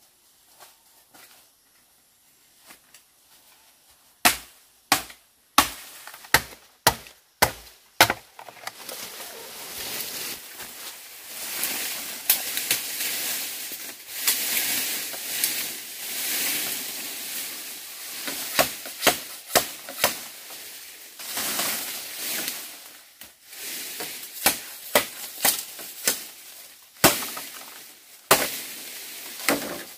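Machete chopping bamboo: a quick run of about eight sharp strikes, then a long stretch of rustling and scraping of leafy bamboo, then more strikes in short groups near the end.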